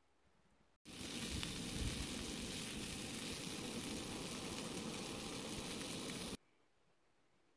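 Bratwurst and sliced peppers and onions sizzling steadily in a skillet on a single-burner camp stove. The sizzle starts abruptly about a second in and cuts off just as abruptly about five and a half seconds later.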